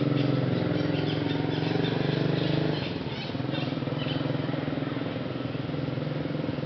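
A motor runs steadily, a little louder for the first three seconds, with short high chirps over it between about one and four seconds in.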